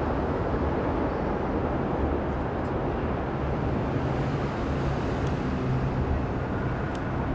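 Steady low rumble of distant traffic outdoors, with no single event standing out.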